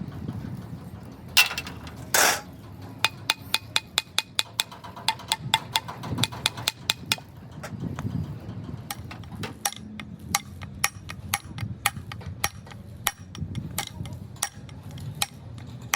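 A rapid series of sharp knocks, about three to four a second, with two louder, longer noises about a second and two seconds in.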